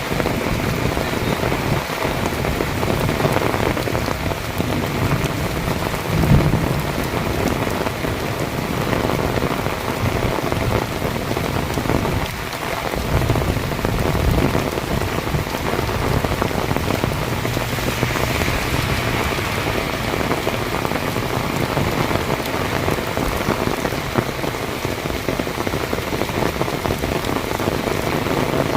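Heavy rain falling steadily, a dense, even downpour, with a brief low thump about six seconds in.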